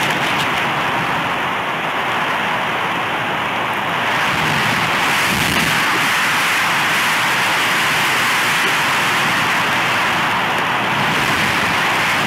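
Steady rushing wind noise on the outdoor nest camera's microphone, a little louder and brighter from about four seconds in.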